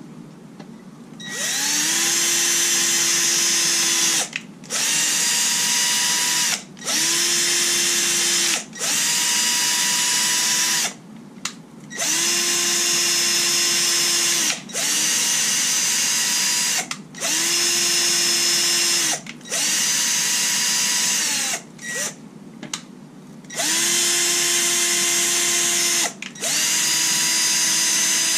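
Cordless drill spinning a small wire brush in a threaded bolt hole in an engine block to clear out packed grime. It runs in about ten bursts of roughly two seconds each, with short pauses between. The motor whine rises at the start of each burst and falls away at the end.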